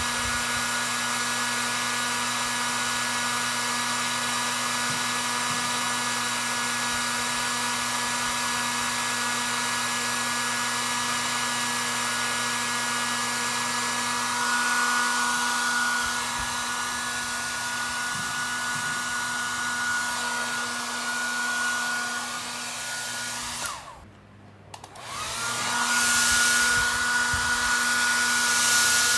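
A hair dryer blowing steadily with a motor whine. About 24 seconds in it is switched off for roughly a second, then switched back on, the whine rising as it spins up.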